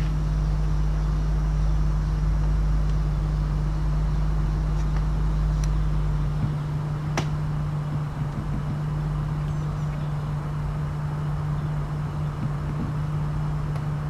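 Steady low mechanical hum, with a deeper drone under it that stops about six and a half seconds in. A few sharp clicks sound over it, near the middle.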